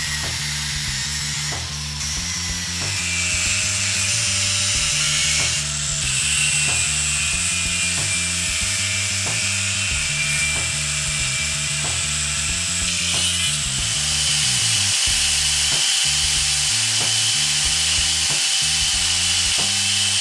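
Angle grinder with a thin cut-off disc cutting steel, a steady high hiss whose tone shifts a couple of times, over background music with a repeating bass line.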